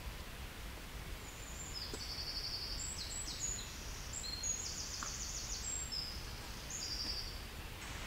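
A small songbird singing one long, fast, high-pitched song of rapid trills and notes, lasting about five and a half seconds and starting about two seconds in, over a low steady background rumble.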